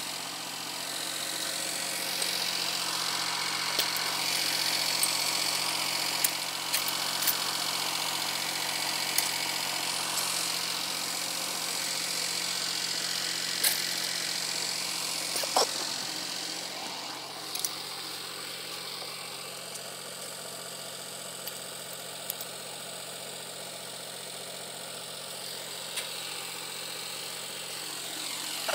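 Old single-cylinder stationary diesel engine running steadily under load, belt-driving a tubewell pump, with a few sharp clicks over its even beat.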